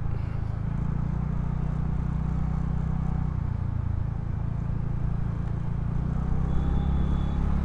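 Vehicle engine running steadily at an even speed, a low hum that does not change.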